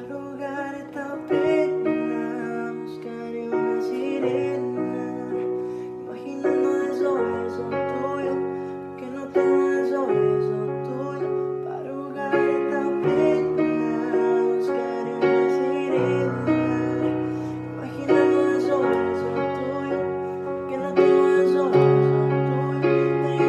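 Piano or keyboard music: held chords struck one after another, each fading before the next, the chord changing every second or two.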